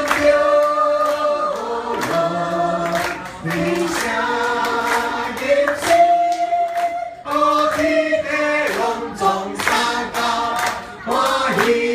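A group of people singing a Taiwanese song together, holding long notes, with hands clapping along.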